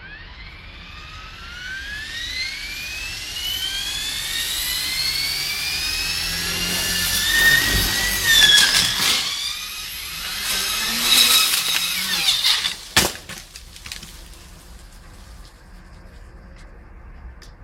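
RC helicopter spooling up, its whine rising steadily in pitch for about seven seconds. Its spinning rotor blades then cut into tree branches with crackling and a wavering whine. A sharp crack comes about thirteen seconds in, after which the whine is gone.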